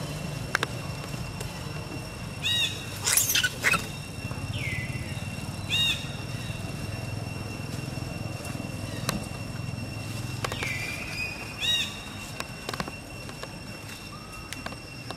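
Outdoor ambience: a steady high whine with a low rumble beneath, broken by short chirping calls repeated a few times and two falling whistles. The loudest is a sharp high squeal about three seconds in.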